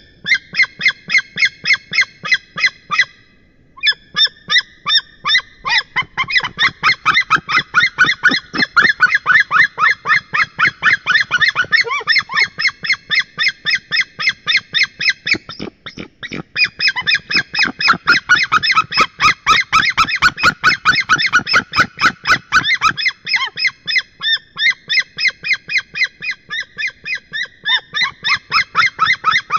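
A pair of white-tailed eagles calling together at the nest: a very loud, rapid series of repeated calls, about four a second, the two birds' calls overlapping. The calls break off briefly about three seconds in and again around halfway.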